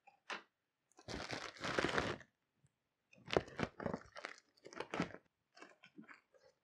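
Plastic packing material (air-cushion columns and a plastic bag) crinkling and crunching as it is handled and lifted out of a cardboard box: a long crinkle about a second in, then a run of shorter crunches.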